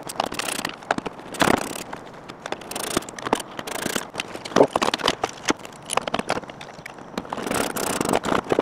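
Irregular clicks, knocks and scrapes of a plastic interior door handle and lock assembly being fitted against the bare steel inner door panel of a Lexus SC, with a screwdriver working at its mounting.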